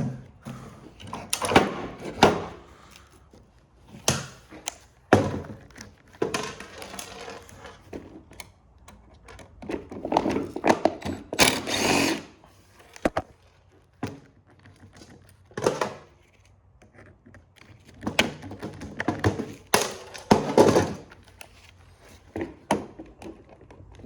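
Tools and metal parts of a printer being worked on by hand: irregular knocks, thunks and clatters, with a few longer rattling, scraping stretches.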